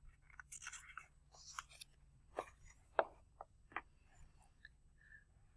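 Faint rustling of a picture book's paper pages being handled, followed by a few short soft clicks and taps.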